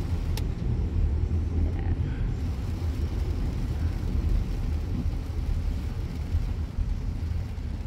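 Steady low rumble of road and tyre noise inside a car's cabin, driving on a wet road in the rain. A single sharp click comes about half a second in.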